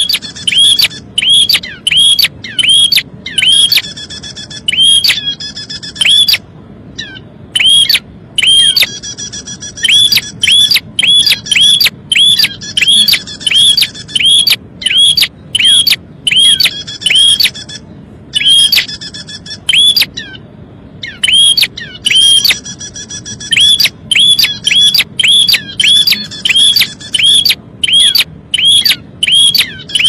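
Prinia (prenjak) lure recording: loud, sharp downward-sweeping calls repeated about twice a second in long runs, broken by two short pauses, with nestling begging calls mixed in.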